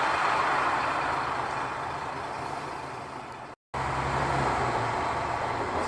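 Diesel railcar running on the line, its noise fading over the first three and a half seconds. After a brief cut, a steady low diesel engine hum follows.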